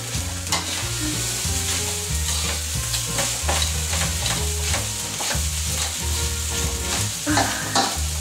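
Fried rice sizzling in a steel wok over a gas flame, stirred continuously. A metal spatula scrapes and knocks against the wok's sides again and again.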